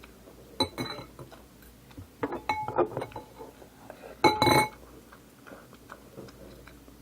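A metal spoon clinking and scraping against a dish: a few light clinks, then a louder ringing clink about four seconds in.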